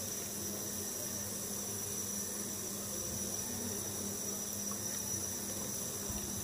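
Steady low hiss with a faint constant high-pitched whine and a low hum; no distinct pouring or sizzling is heard as oil goes into the cold pan.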